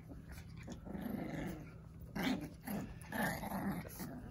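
Puppies play-fighting, one or both giving a series of short, low growls in separate bursts.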